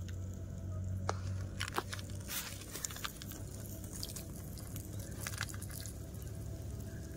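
Small fire in a tin can crackling under a foil tray of frying egg: irregular sharp crackles and ticks, busier in the first few seconds, over a steady low rumble.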